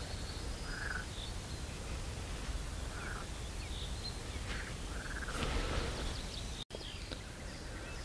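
Pondside ambience: a steady low background rumble with short animal calls repeating every couple of seconds. The sound drops out for an instant about two-thirds of the way through.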